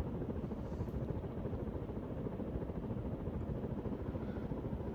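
1988 Hunter Custom Home 52-inch ceiling fan running on high at around 205 RPM: a steady rush of air from its blades.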